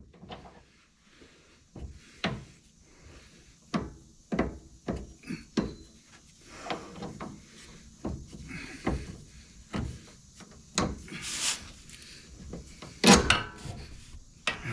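Irregular knocks and clanks of hand tools and metal parts while a car's front suspension is being worked apart, spaced unevenly, with a louder cluster of knocks near the end.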